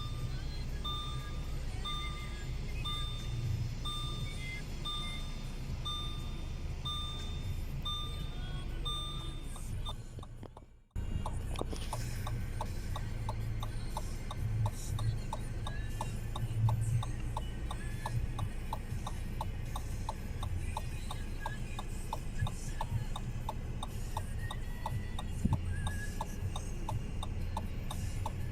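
Inside a moving car: a two-note electronic warning beep pulses about twice a second for the first ten seconds, over the low hum of the engine and tyres. After a brief drop to silence, the turn-signal indicator ticks steadily over the same hum.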